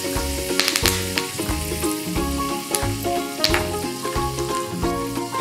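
Curry leaves frying in hot oil in a small kadai, a steady sizzle, over background music with a plucked melody and a regular bass beat.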